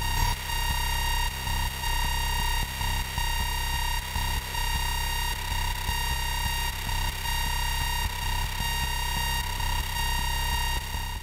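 Radio-frequency interference from a running FuG 220 Lichtenstein SN-2 night-fighter radar, leaking into a wireless microphone receiver. It is a steady electronic whine near 1 kHz with a stack of buzzy overtones over a low pulsing hum, and the tone drops out briefly every second or so.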